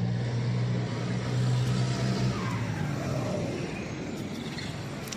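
A motor vehicle going past, its steady engine hum and road noise loudest a second or two in and fading after about three seconds.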